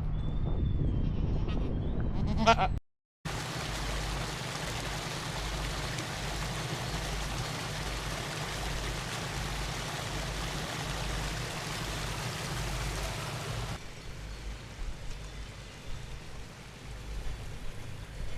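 Livestock bleating, one call about two and a half seconds in over a low rumble. After a brief cut, a steady rushing noise with a low throb fills the rest, dropping quieter a few seconds before the end.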